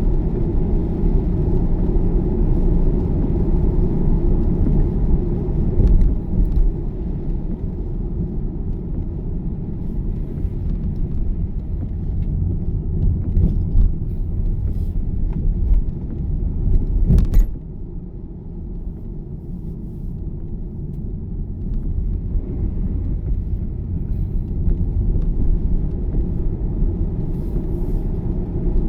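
Car in motion heard from inside the cabin: a steady low rumble of engine and tyres on a wet road. A short sharp knock comes about 17 seconds in, after which the rumble turns briefly quieter before building back up.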